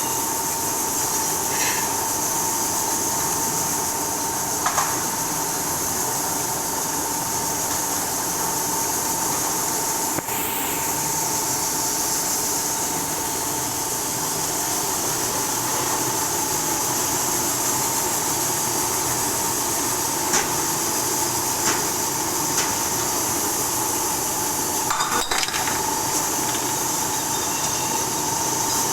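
Glass bottle brushing and washing machine running: a steady mechanical whir with a high hiss and a constant whine, broken by a few sharp clinks of glass.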